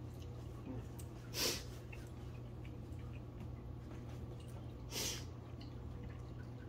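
A man sniffing twice through a runny nose, about a second and a half in and again about five seconds in, after eating spicy sauce. A low steady hum runs underneath.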